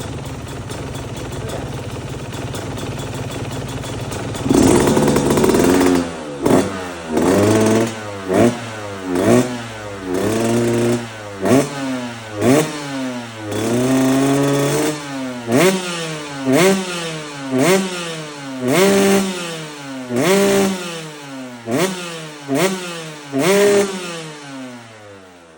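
Yamaha YZ125X two-stroke single-cylinder dirt bike engine idling steadily, then revved again and again with quick throttle blips, the pitch climbing and dropping back each time, a few blips held a little longer.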